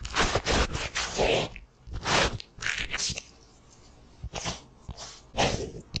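A crumpled white facial tissue being crinkled and rubbed between hands close to the microphone, in about four bursts of crackly rustling with short pauses between them.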